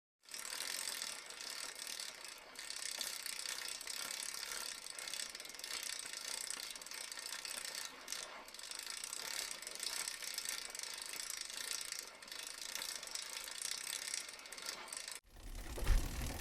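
Bicycle freewheel ratchet clicking rapidly and continuously as the rear wheel spins freely. Near the end it cuts off abruptly and a low rumbling sound begins.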